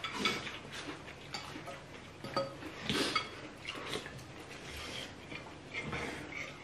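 Table eating sounds: chopsticks, spoons and forks clicking and scraping against ceramic bowls in scattered short clicks, with a noisy slurp of noodle soup about three seconds in.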